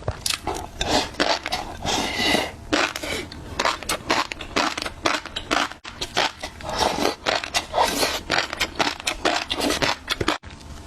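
Close-miked eating of fish roe: dense crunching and crackling bites and chews, several sharp crackles a second.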